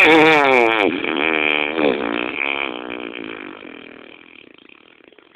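A long, drawn-out fart sound that starts suddenly at full loudness, its buzzy pitch wobbling up and down as it fades away over about four seconds.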